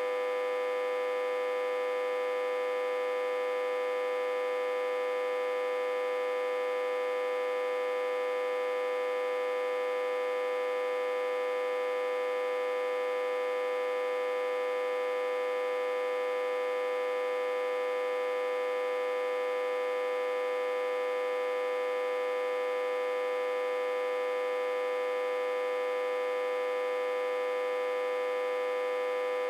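Autotransformer humming, a steady unwavering tone pitched around 500 Hz with a dense stack of overtones. The hum comes from the autotransformer being reverse-connected to a step-down transformer and fed about 60–80 V.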